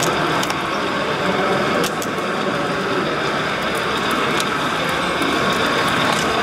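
HO scale model train with two diesel locomotives, an SD70M and an ES44DC, running on the layout track: a steady mechanical rumble with scattered light clicks over the background noise of a large hall.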